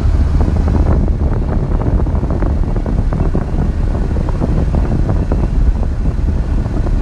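Road and wind noise inside a moving car's cabin: a steady low rumble with scattered light clicks and rattles.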